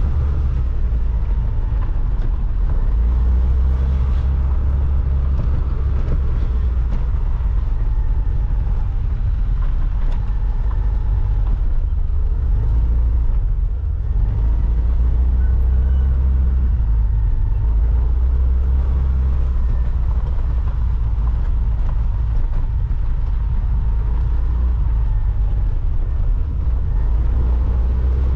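Steady low rumble of a vehicle driving along a dirt street, picked up by a camera mounted on it.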